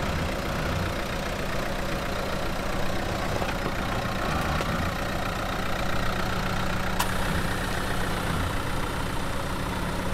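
Dacia Duster engine running steadily at a slow crawl, a low even hum as the SUV creeps over roots and rocks in low speed. One sharp click about seven seconds in.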